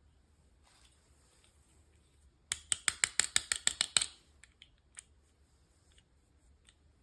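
A quick run of about ten sharp clicks, about seven a second, lasting a second and a half, followed by a couple of faint single clicks.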